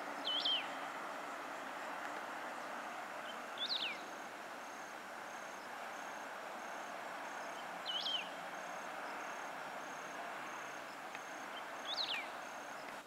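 Outdoor rural ambience: a bird gives a short call with a sharp downward sweep four times, about every four seconds, over a steady insect chorus. A faint high beeping runs through the middle.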